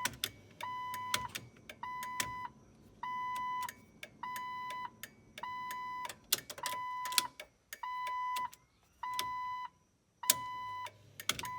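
2006 Jeep Wrangler's electronic chime beeping steadily, a tone of about half a second repeating roughly every 1.2 seconds, with sharp clicks at each beep, as the new headlight and turn-signal switch is tried out.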